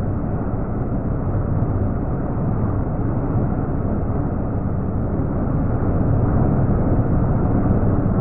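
Metal lathe cutting a steel workpiece, heard slowed down with the slow-motion footage as a low, steady rumble that grows a little louder toward the end.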